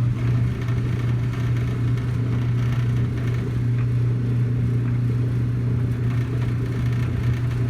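Samsung clothes dryer running with a steady hum and a fast, buzzing metal rattle: two metal pieces at the vent connection vibrating against each other across a small expansion gap.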